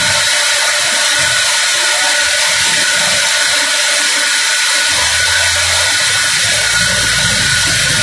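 Large band sawmill running: a loud, even machinery noise with a steady high whine. A low hum comes in about five seconds in and grows near the end.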